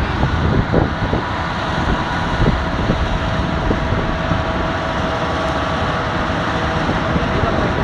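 Steady loud rumble of wind and a running vehicle, with a faint steady tone held underneath.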